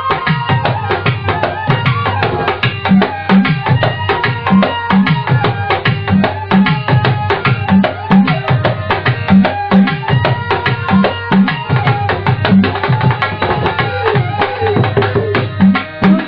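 Bangladeshi folk music played live: hand drums keep a steady rhythm of deep strokes under held melody notes from the accompanying instruments.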